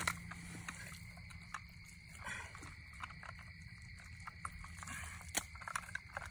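A faint, steady, high-pitched chorus of night creatures, with scattered small clicks and rustles from hands working at a salmon's jaw on the ground. One sharper click comes about five seconds in.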